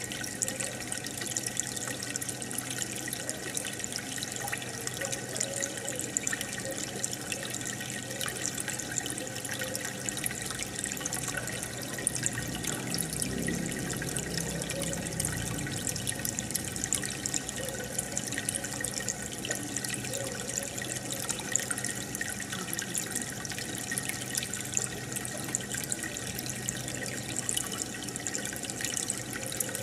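Aquarium water bubbling and trickling steadily, with a fine crackle of air bubbles breaking at the surface, and a fuller low gurgle for a few seconds midway.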